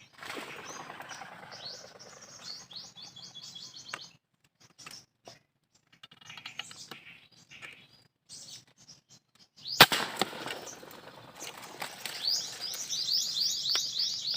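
Small birds chirping in quick runs, with a single sharp gunshot near ten seconds in, the loudest sound, after which the chirping and flapping pick up again.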